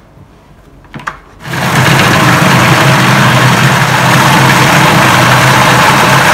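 A short click about a second in, then a Magimix food processor's motor starts and runs steadily at full speed, its blade blending silken tofu, prawns and egg into a smooth paste.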